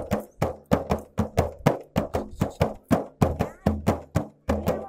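Large hand-held frame drum beaten by hand in a fast steady rhythm, about five strokes a second, deep open thumps mixed with sharper slaps.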